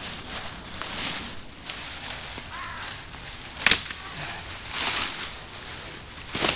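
Leafy branches swishing and rustling as they are laid onto a natural shelter, with a sharp crack of a stick a little past halfway and another near the end.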